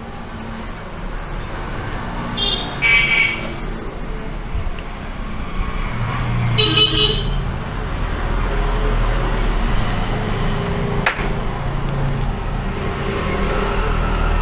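Road traffic rumbling in the background, with two short vehicle horn toots about three and seven seconds in, and a single sharp click near the end.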